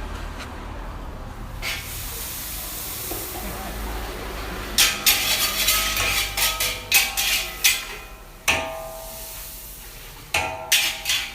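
Restaurant kitchen cooking: a steady hiss of frying over a low rumble, then a quick run of sharp metal clatters and clangs of utensils against pans, each ringing briefly, which stops and starts again near the end.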